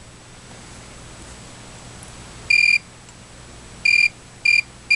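Multimeter continuity beeper giving short high-pitched beeps as the lightsaber's push-button switch is pressed, each beep showing the switch closing the circuit. One beep comes about two and a half seconds in, then three shorter ones in quick succession near the end.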